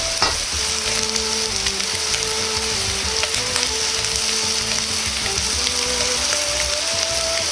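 Chicken skin sizzling steadily as it fries in a dry frying pan over medium heat, with no oil added. A quiet melody of background music plays along.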